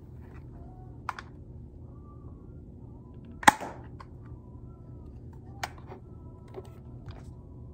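Cheap spring-powered airsoft pistol firing a single 0.20 g BB through a chronograph on its muzzle: one sharp snap about halfway through, with a couple of lighter handling clicks before and after. It is a low-powered springer, clocking about 120 feet per second.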